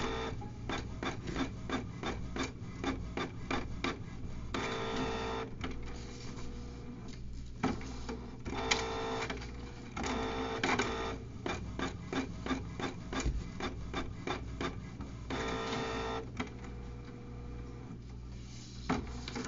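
Canon Pixma MG3220 inkjet printer printing a page: long runs of rapid clicking from the print head passes, broken by a few short, steady whirs about a second long. It is printing at a speed the owner finds too fast for the ink to take properly.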